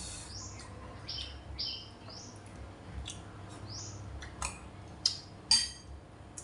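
Small birds chirping repeatedly in short high calls, some sweeping upward. Several sharp clicks from eating come in the second half, the loudest two about half a second apart.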